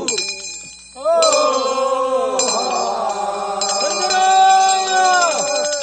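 Group of men singing the long, drawn-out chorus refrain of a Korean funeral bier-carriers' song (sangyeo sori), several voices together, entering about a second in after a short lull. A hand bell rings over it with repeated strikes.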